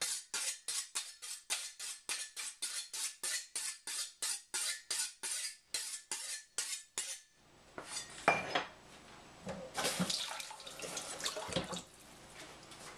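Chinese cleaver blade stroked quickly and evenly on a sharpener, about four strokes a second, stopping about seven seconds in. After that come irregular clinks over the sound of running tap water.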